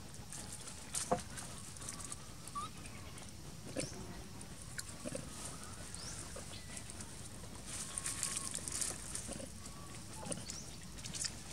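Long-tailed macaques making short, scattered grunts and squeaks, with a few brief clicks over a steady outdoor hiss.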